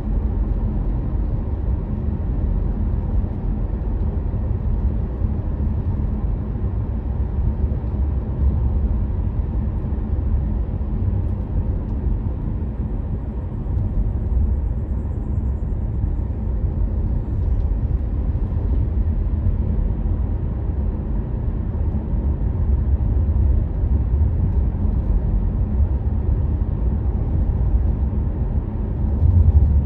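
A car driving along a road, heard as a steady low rumble of tyres and engine, swelling slightly near the end.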